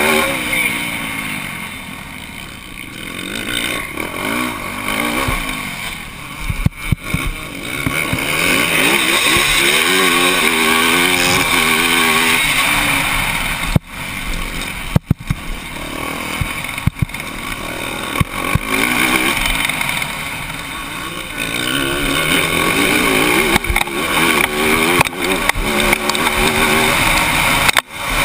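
Motocross bike engine heard from the rider's helmet camera at racing speed, its pitch rising and falling again and again as the throttle is worked through corners and straights.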